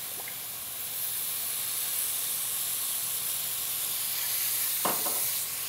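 Pork, broccoli and peanuts sizzling in a hot wok over a high gas flame as olive oil is poured in: a steady high hiss that grows a little louder about a second in. A couple of light knocks near the end.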